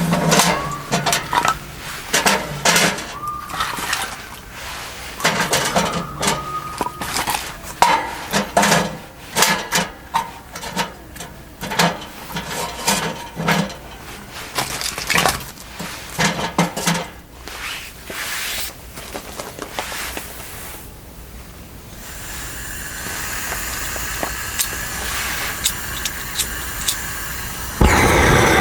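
Repeated clattering and clinking of hard objects being handled, like camp dishes and gear, for most of the stretch, then a quieter steady hiss. Near the end a loud low steady rumble starts abruptly.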